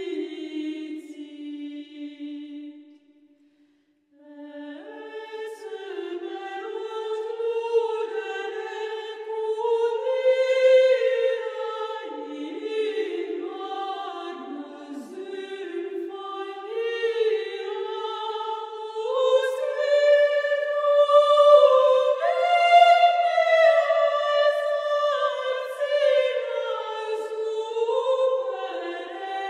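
Background music of a choir singing slow, sustained lines with no instruments heard, the notes moving in steps; it breaks off briefly about three seconds in, then resumes.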